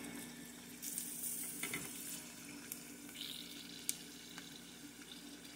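Dried fish (daing) frying in hot oil in a pot, a soft steady sizzle with scattered crackles over a faint steady hum. A single sharper click about four seconds in, as the metal tongs touch the pot.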